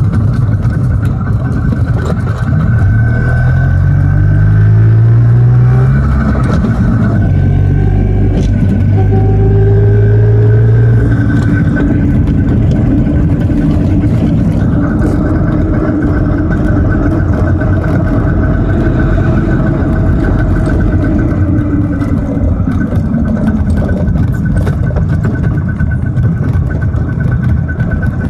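Messerschmitt bubble car's single-cylinder two-stroke engine running on the road, rising in pitch twice as it accelerates in the first ten seconds or so, then running steadily, with road noise.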